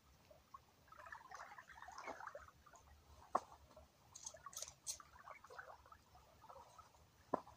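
Faint, scattered crackling and rustling close to the microphone, with two sharp clicks, one a little before the middle and one near the end.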